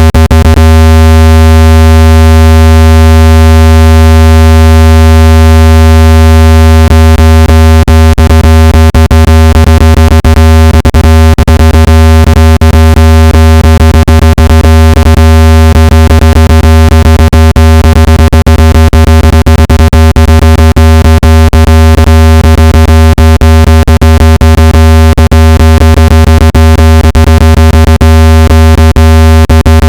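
Speaker water-ejection tone: a very loud, steady, low synthetic hum with a ladder of overtones, broken by frequent irregular clicks. The tone is meant to shake trapped water out of a phone or earbud speaker.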